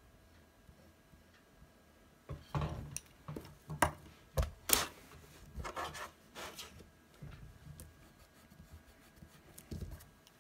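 Hands handling a mechanical pencil, eraser and drawing paper on a desk: rubbing and scraping on the paper with several sharp knocks as things are set down. It starts about two seconds in and grows fainter after the middle.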